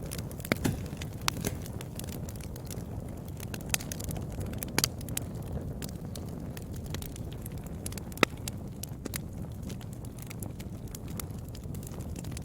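Wood fire burning with a steady low rush and scattered sharp crackles and pops, the loudest pop about eight seconds in.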